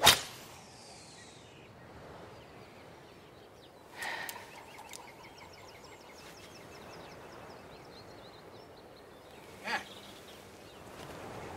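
A golf club strikes a teed ball with a sharp crack, and the ball whooshes away. Faint birdsong follows, broken by two brief sounds about four and ten seconds in.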